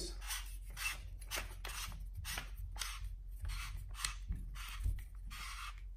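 Paintball marker barrel being screwed in by hand, its threads scraping in short strokes about three a second as it is twisted tight against the friction of its O-ring.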